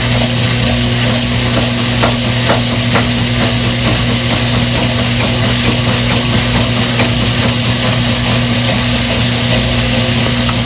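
Steady machine hum with an even whirring noise over it, and a few light knocks about two to three seconds in.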